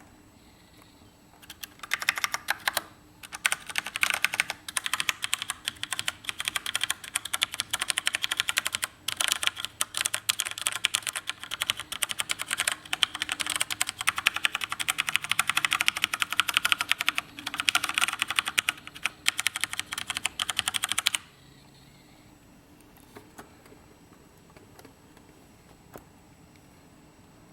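Fast typing on a CM Storm Quickfire Rapid mechanical keyboard with Cherry MX Brown switches: a dense, rapid stream of key clicks with a few brief pauses. The typing stops about three quarters of the way through, leaving only a few faint ticks.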